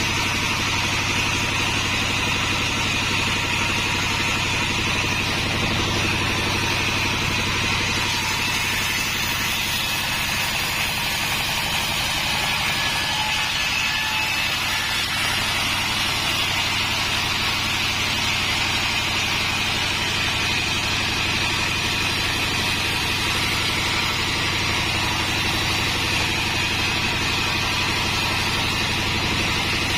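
A homemade sawmill machine running steadily, its motor giving a constant low hum with a higher whine over it, without a break.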